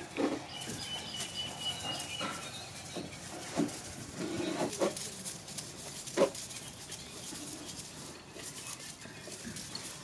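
Short animal calls a few seconds apart, with a thin high call lasting about a second near the start.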